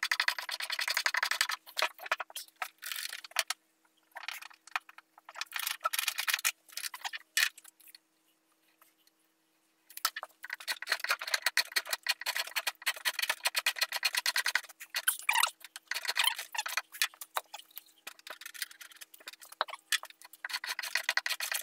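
Drawknife shaving wood off the end of a log pole to form a tenon, in runs of fast scraping chatter from the blade cutting across the grain. The runs are broken by short pauses and stop completely for a couple of seconds in the middle.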